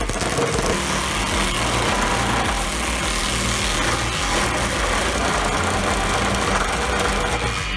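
An engine running steadily at an even speed, with a constant low drone under a wide noise.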